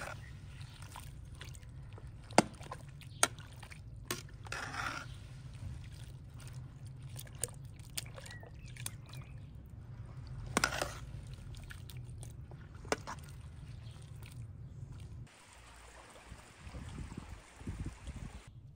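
A metal ladle stirring cauliflower florets through liquid in an aluminium pot: sharp clinks of metal on the pot with wet sloshing. About three-quarters of the way through this gives way to a small stream trickling.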